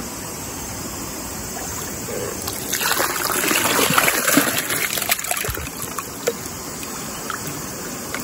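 River water running steadily. From about three to five seconds in there is a louder stretch of splashing and trickling water, followed by a few light knocks.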